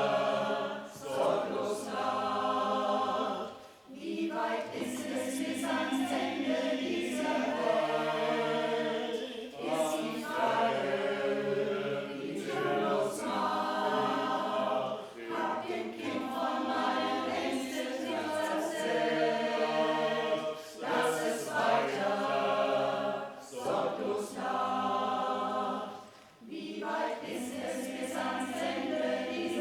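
A vocal ensemble singing a Schlager song in several voice parts, with brief breaks between phrases about four seconds in and again near the end.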